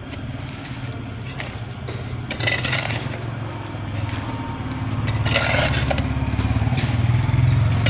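A machine engine running steadily and growing louder, with two bursts of gritty crunching and scraping, about two and a half and five and a half seconds in.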